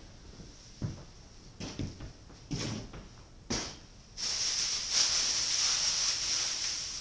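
A few scattered knocks and thumps, then, about four seconds in, a steady high hiss sets in and holds.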